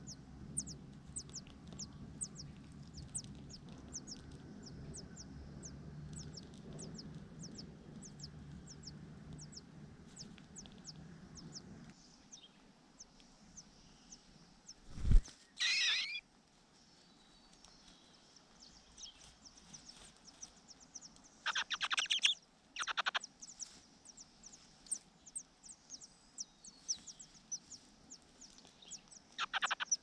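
Large niltava nestlings begging at the nest: a steady series of faint, high, thin calls, with louder bursts of begging calls around the middle and near the end as a parent feeds them. One heavy thump comes about fifteen seconds in.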